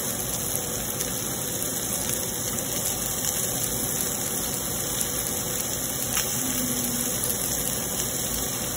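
Sliced onions, green peppers and shredded pulled pork sizzling steadily in a hot frying pan, with a few faint pops.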